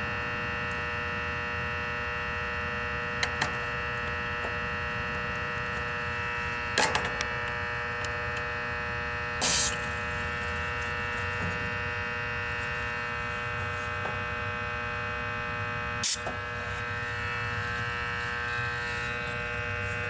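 Short spurts of refrigerant hissing from a heat pump's Schrader service valve as a screwdriver tip presses its core, three times, the middle one the longest and the last trailing into a faint hiss for a few seconds: the system still holds a charge. A steady electrical buzz runs underneath.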